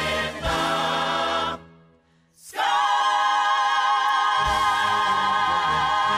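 Show-tune recording: a chorus of voices singing with accompaniment, a break to near silence about two seconds in, then the voices come back on a long held chord with vibrato.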